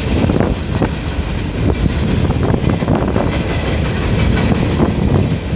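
Freight train's open-top hopper cars rolling past: a steady rumble of steel wheels on rail, with irregular clicks and clacks as the wheels cross rail joints.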